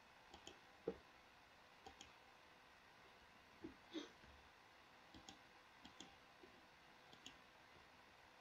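Faint computer mouse clicks, about a dozen short, scattered clicks over near silence, the strongest about a second in and about four seconds in.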